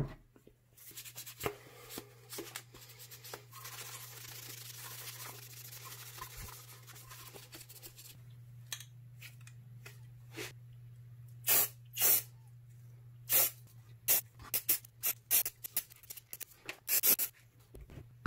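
Aerosol can of Rust-Oleum automotive primer sprayed in a series of short hissing bursts through the second half. A longer, softer hiss comes a few seconds in, and a low steady hum runs underneath throughout.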